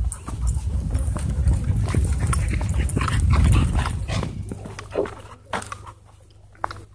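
Dogs barking in short calls, with two about five seconds in, over a low rumble that dies away after about four seconds.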